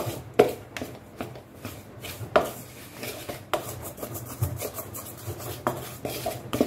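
Metal spoon stirring and scraping a rough flour-and-water dough in a stainless steel bowl, with irregular sharp knocks where the spoon hits the bowl.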